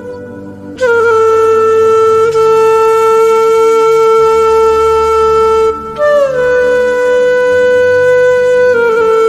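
Background music: a woodwind instrument holding long, steady notes of several seconds each, with short downward slides between notes.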